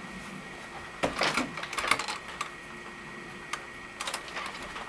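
A few irregular light clicks and rustles over a faint steady room background.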